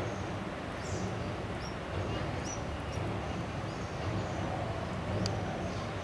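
Red-vented bulbul nestlings begging at the nest with a few short, high chirps, over a steady low background rumble. A single sharp click comes about five seconds in.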